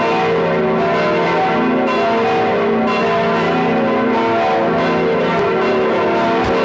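Several church bells ringing loudly together, their strikes and hum overlapping in a continuous peal.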